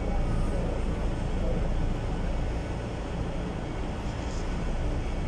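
Mercedes-Benz O345 city bus running, a steady low diesel rumble mixed with road noise, easing slightly about halfway through.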